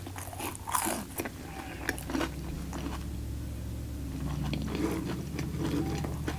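Close-miked biting and chewing of a breaded-chicken Caesar wrap: crunchy, wet mouth sounds, busiest in the first two seconds. A low steady rumble comes in from about halfway on.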